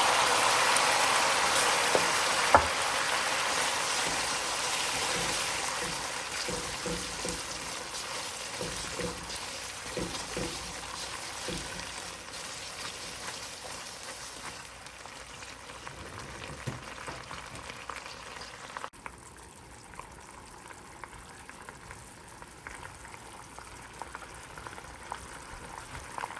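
Oil and garlic sizzling in a saucepan with sweet and sour sauce just added, the sizzle fading steadily with scattered small pops. There is one sharp knock about two and a half seconds in.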